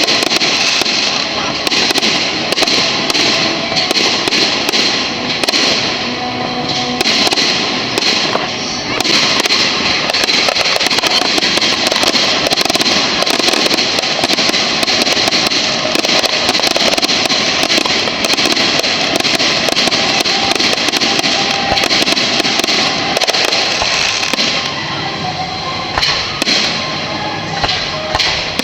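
Fireworks display going off almost without pause: a dense, continuous crackle with many sharp bangs, thinning somewhat near the end, with music playing under it.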